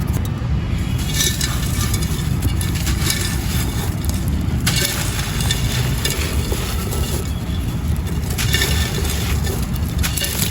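Dry white claypot pieces crunching and crumbling as they are crushed, in bouts of gritty crackle over a steady low rumble.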